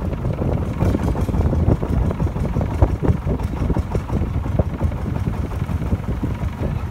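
Motorboat engine running, a loud, uneven low rumble as the boat moves along the canal.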